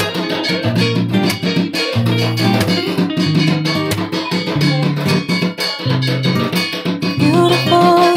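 Background music with plucked guitar, a bass line and a steady beat.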